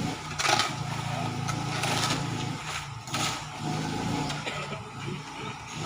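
A small engine running steadily, with a few short rasping noises on top.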